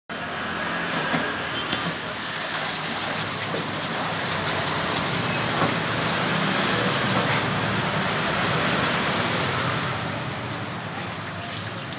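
Water splashing and churning in a catfish holding tank as a dip net is swept through it and the catfish thrash, a steady wash of noise that grows a little louder around the middle.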